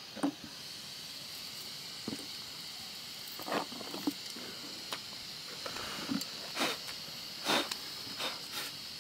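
Knife slicing an onion held in the hand, a few short irregular cuts and clicks, over a steady high hiss.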